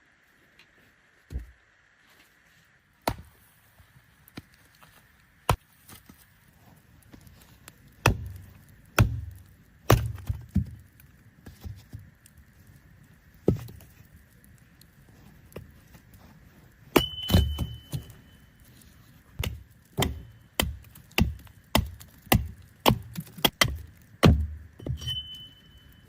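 An irregular run of sharp knocks and thuds, a few seconds apart at first and then coming quickly in the second half. Two of the blows leave a short ringing tone, like metal being struck.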